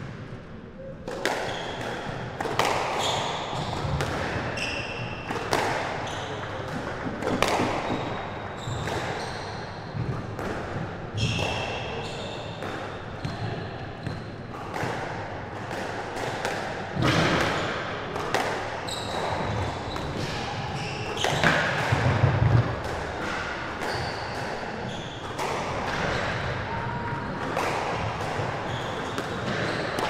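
Squash rallies: the ball cracks off racket strings and the court walls about once a second, with short squeaks of the players' shoes on the wooden court floor between the hits.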